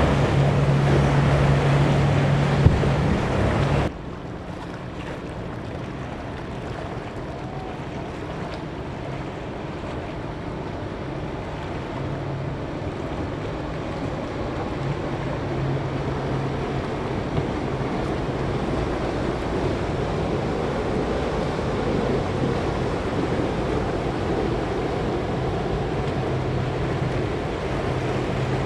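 Powerboat engines running as boats cross a rough inlet, over the wash of breaking waves and wind on the microphone. The sound cuts off abruptly about four seconds in and comes back quieter, then the engine hum swells again now and then as boats pass.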